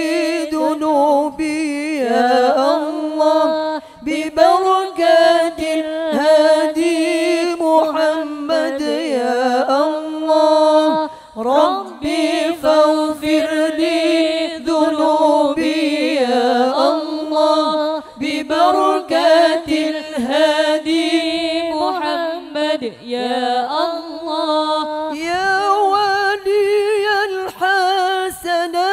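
A woman's solo voice chanting an Islamic devotional prayer into a microphone, unaccompanied, in long drawn-out phrases that waver up and down in pitch, with brief pauses for breath.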